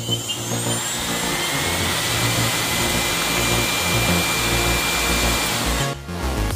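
The Parkside cordless chainsaw's brushless motor, out of its housing and wired to its controller, running free with no chain or load. A high whine over a rushing noise rises in pitch at first, then holds steady, and the motor stops near the end.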